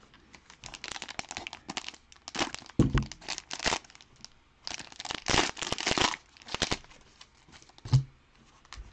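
Plastic cellophane wrappers of Panini Prizm football card cello packs being torn open and crinkled, in irregular bursts. One sharp thump near the end.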